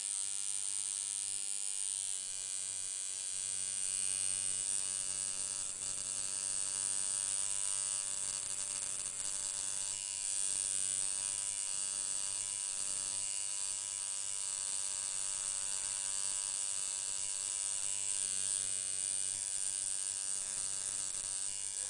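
A steady electric buzz, like a small motor running: a low hum with a bright, high-pitched edge that goes on without a break.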